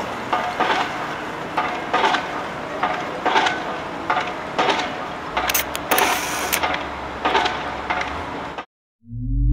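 Machine-like mechanical noise with a knock about once a second and a brief hissing burst about halfway through. It cuts off abruptly near the end, and a deep musical tone starts just after.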